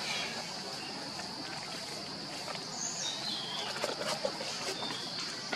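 Outdoor forest ambience: a steady high insect drone, with a short falling chirp about three seconds in and a few faint rustles and clicks.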